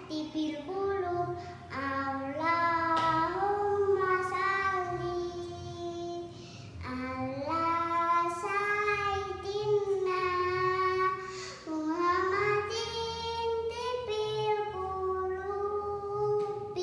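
A young girl singing sholawat, an Islamic devotional song, solo, with long held notes that glide and bend between pitches and short breaks for breath.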